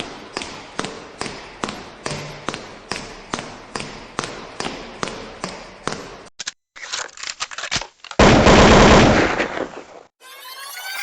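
Evenly spaced sharp thuds, about two a second, then a rapid cluster of sharp bangs and a loud noisy blast, the loudest moment, typical of gunfire. Music starts near the end.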